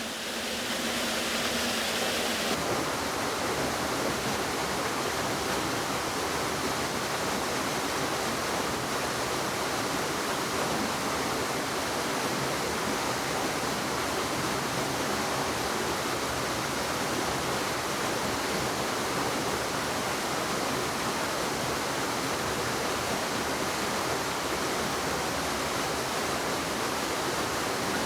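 Waterfall pouring steadily into a creek, a constant even rush of falling water close by.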